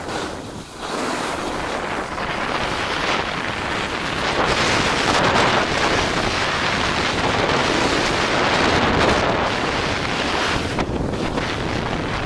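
Wind rushing over the microphone of a camera carried by a downhill skier, with skis hissing and scraping over packed snow. The rush swells about a second in and eases briefly near the end.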